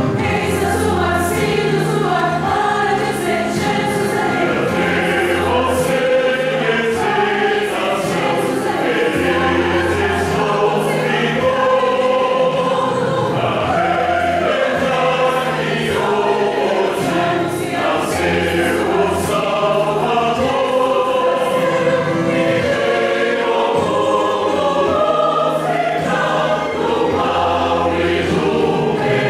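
Mixed choir of men and women singing a Portuguese-language Christmas hymn in parts, with instrumental accompaniment and a bass line under the voices.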